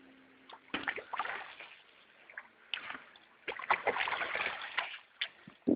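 Water splashing and sloshing in irregular bursts as a hooked carp thrashes at the surface while being landed.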